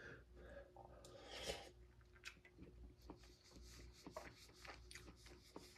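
Near silence, with faint small clicks and a soft rustle about a second and a half in: quiet eating and handling sounds of a spoon and a ration pouch.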